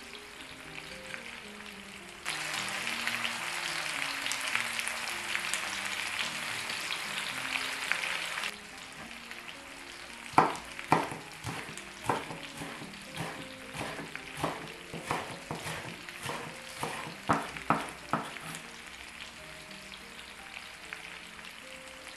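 Food sizzling in a pan for about six seconds, cut off abruptly. Then a chef's knife chopping green onions on a wooden cutting board, about two quick strikes a second for several seconds, over soft background music.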